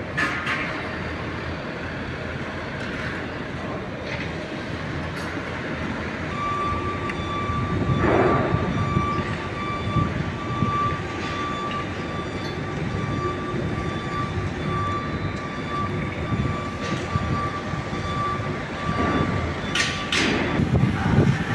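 A train running on nearby tracks: a steady rumble, with a high whine held through the middle and a swell in loudness early on.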